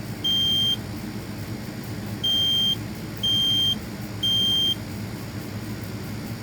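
Kidde smoke alarm system sounding its three-beep fire alarm pattern during a test. A high-pitched beep of about half a second closes one group, then after a short gap come three more such beeps a second apart, and the beeping stops about a second and a half before the end. A low steady hum runs underneath.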